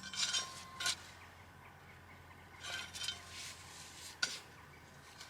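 Potatoes being dug out of the soil with a garden tool: a few short scraping rustles of soil and a sharp metallic clink about four seconds in.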